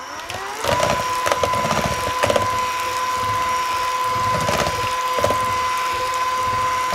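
Cordless hand mixer winding up over the first second, then running at a steady high whine. Its wire beaters clatter against the mixing bowl a few times as they beat a soft cream cheese batter.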